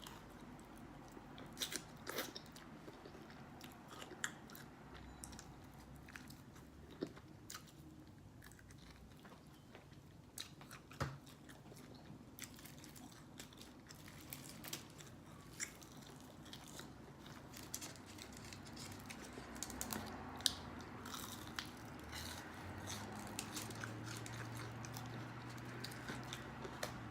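Close-up eating sounds: biting and chewing fried takeout food, with irregular crunchy clicks and wet mouth sounds.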